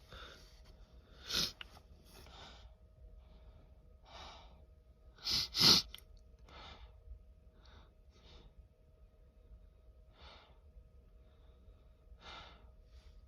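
A man sneezing, his sneezes set off by Chhinkni sneezing powder. There is one sneeze about a second in and a louder double sneeze near the middle, with breathing between them.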